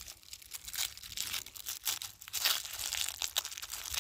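Firework packaging being handled and pulled open, wrapping crinkling and tearing in a quick, irregular run of crackly rustles.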